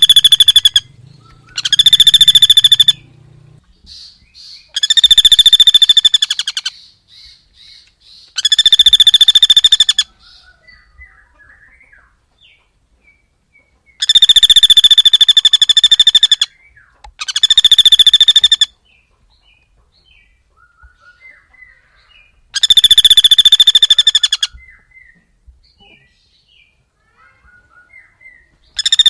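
Recorded bird calls played for tutoring: loud, rapidly pulsed, rasping calls in bouts of one and a half to two and a half seconds, repeated every few seconds, with faint thin chirps between them.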